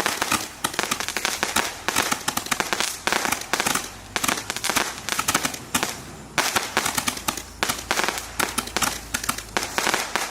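Roman candle battery firing: a dense, rapid crackle of shots and popping stars, with a few brief lulls, dying away at the very end.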